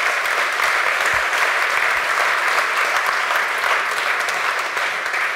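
Audience applauding, a steady dense clapping that eases off near the end.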